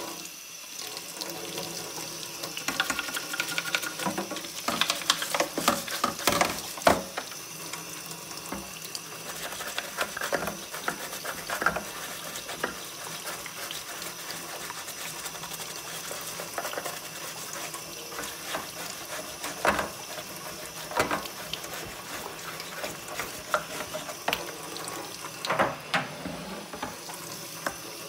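Tap water running into a kitchen sink while a toothbrush scrubs a soapy circuit board: a steady hiss of water with repeated scratchy brushing strokes and splashes, heaviest a few seconds in and again near the end.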